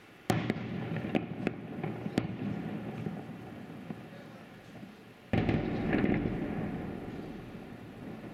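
Aerial firework salute shells bursting: a volley of bangs starts about a third of a second in, with several sharper cracks over the next two seconds, and its rumble slowly fades. A second volley breaks about five seconds in and fades away.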